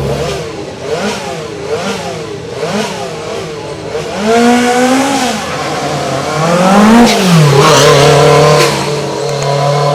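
Lancia Group B rally car engine revving. It gives several short throttle blips, then two longer, louder revs about four and seven seconds in, and settles to a steadier note near the end.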